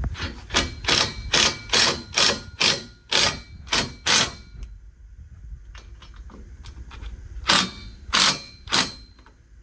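Ryobi cordless impact driver run in short trigger pulses, about ten in quick succession, then after a pause three more near the end, driving T40 Torx screws into the plastic fascia. The pulses are kept short so as not to over-tighten the screws into plastic.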